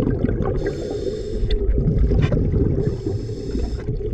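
Diver breathing underwater through a Beuchat V-First scuba regulator: two hissing inhalations, each about a second long and a little over two seconds apart. Between them is a low bubbling rumble of water and exhaled air.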